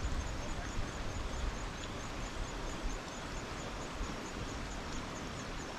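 Steady rush of flowing creek water, with uneven low wind rumble on the microphone.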